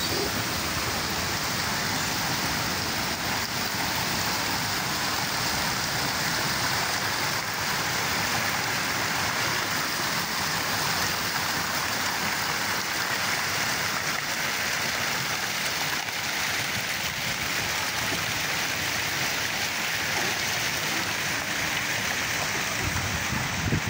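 Steady rushing and splashing of water from a fountain's rows of jets falling into a shallow pool.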